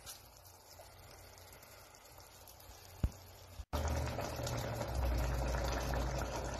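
Thick chili simmering in a pan, bubbling steadily and loud from a little past halfway through, with a low rumble; before that only a faint hiss and a single click about three seconds in.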